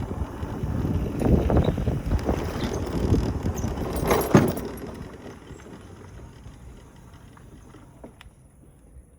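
Mobility scooter driving along at its 15 km/h top speed: a rough rumble with irregular rattles and knocks, loudest in the first four or five seconds, then dying down to a quiet background.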